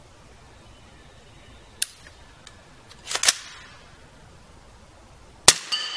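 Suppressed shots from an 8-inch-barrelled AR in 300 Blackout firing 220-grain subsonic reloads through an Octane 9 HD suppressor: a sharp click about two seconds in, a louder double report a second later, and the loudest report near the end, followed by a brief metallic ring.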